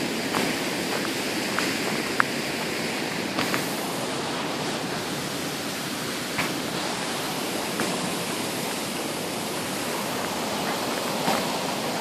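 Steady rush of fast-flowing creek water and a waterfall, with a few faint crunches of footsteps on the icy trail.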